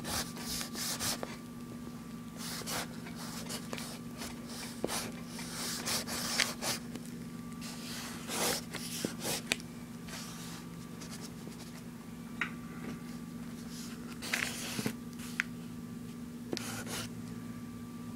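Solid paint marker with a crayon-like orange tip being drawn across sketchbook paper: irregular rubbing strokes of varying length, some short and some drawn out. A low steady hum runs underneath.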